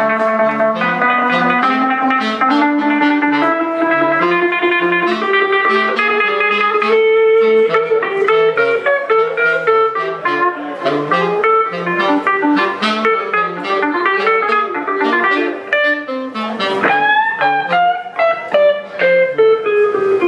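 Live instrumental duo: a hollow-body electric guitar picking a busy run of notes, with a saxophone playing longer held notes over it.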